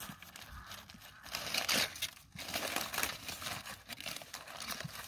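Aluminium foil crinkling and rustling in uneven bursts as hands pull open a foil-wrapped parcel.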